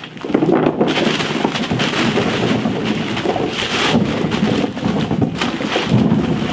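A heap of harvested potatoes being poured out onto a tarp: a continuous rumbling clatter of many tubers tumbling and knocking together.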